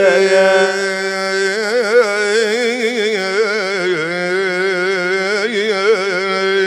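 Arabic mawwal music: a melody winding in ornamented, wavering turns over a steady held drone note, with no words sung.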